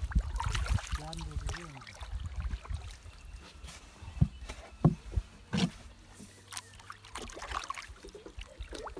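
Wooden paddle working a small wooden boat through the water: swishing strokes and splashes, with several sharp knocks of the paddle against the hull in the middle, over a low rumble of wind and handling on the microphone.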